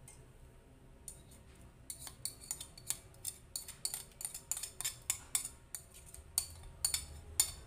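A metal spoon scraping and tapping against a ceramic plate as ground spice paste is scraped off it into a wok. A quick, irregular run of short scrapes and clinks, several a second, starts about a second in.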